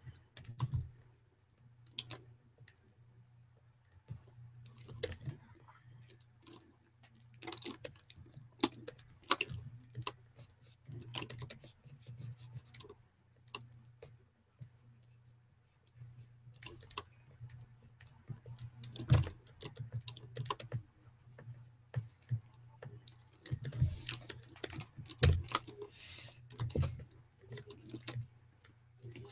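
Computer keyboard keys clicking in irregular, scattered taps with short pauses, over a faint steady low hum.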